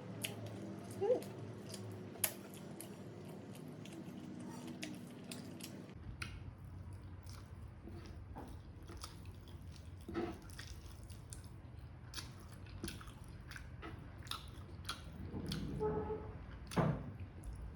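Close-up eating sounds: chewing adobo chicken livers and gizzards, with many short wet mouth clicks and smacks scattered throughout.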